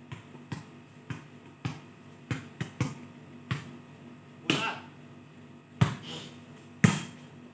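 A volleyball being hit and bouncing during a game: about ten sharp, irregular smacks and thumps, the loudest two near the end. A short pitched call comes about four and a half seconds in.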